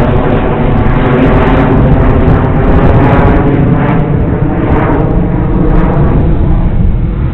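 Electric motors and propellers of an RC tricopter-airplane running loudly and steadily, a hum of several stacked tones, over a heavy low rumble of wind on the microphone.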